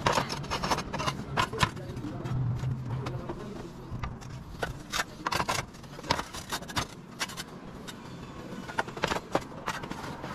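Thin plastic roof tiles knocking and clattering against each other and the roof as they are handled and laid, a string of sharp taps and clicks.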